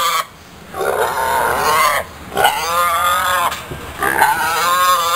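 Pig squealing: three drawn-out, pitched calls of about a second each, each rising and then falling in pitch.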